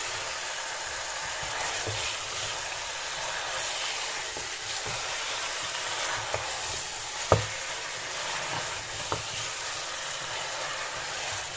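Beef trotters frying in oil and onion masala in a pressure-cooker pot, stirred with a wooden spoon. A steady sizzle runs throughout, with a few knocks of the spoon against the pot; the loudest knock comes about seven seconds in.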